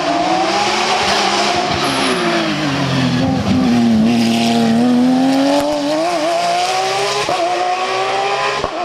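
Hill-climb race car engine running hard under load. Its note sinks slowly to a low point about four seconds in, then climbs steadily again toward the end.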